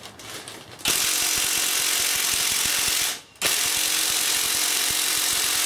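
Cordless impact gun hammering bolts out of a gearbox casing, in two bursts of about two seconds each with a short pause between.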